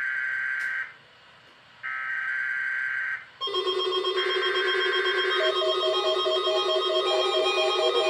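Emergency Alert System SAME header: three bursts of warbling digital data tones, each about a second long with a second's pause between them. From about three and a half seconds in, a steady sound of several held tones joins in under the third burst and carries on.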